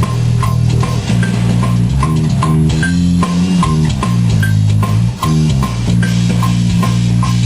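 Heavy metal riff played on guitar and bass during a studio recording take, with a click track ticking steadily about two and a half times a second.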